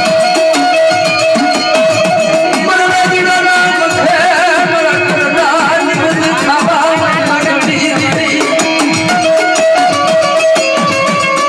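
Gujarati devotional folk music: drums keep a steady beat under a wavering, ornamented melody line.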